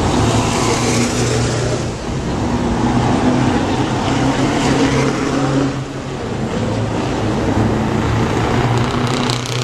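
Scania V8 trucks with open exhaust pipes driving past one after another, the deep, even engine note loud as each comes close and easing between them.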